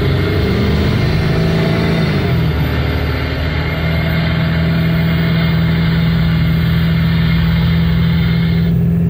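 2002 Ford F-350 Super Duty's 7.3-litre Powerstroke turbo-diesel running at highway cruise, heard from inside the cab along with road noise. The engine drone drops in pitch about two to three seconds in, then holds steady.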